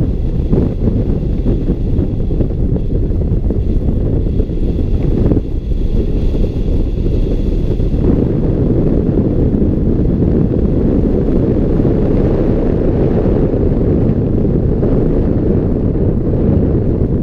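Airflow buffeting a hang glider's wing-mounted camera microphone in flight: a loud, steady low rumble of wind, easing for a couple of seconds about five seconds in, then building again.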